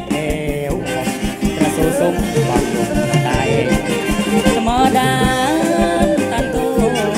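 Live modern kantrum band music: saxophones, keyboard, electric guitar and drum kit playing a steady dance beat, with a man singing over it.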